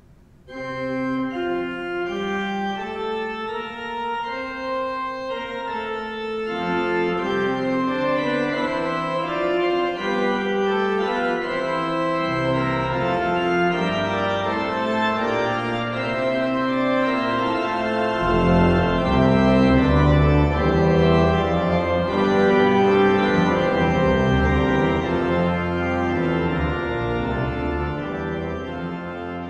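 Organ playing a contrapuntal piece in sustained notes: a single line opens, a second, lower voice enters about six seconds in, and a deep bass line joins around eighteen seconds, filling out the sound. It fades near the end.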